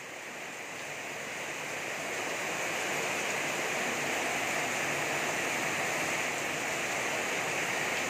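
Heavy tropical downpour pounding a flooded street: a dense, steady hiss of rain that builds over the first couple of seconds and then holds.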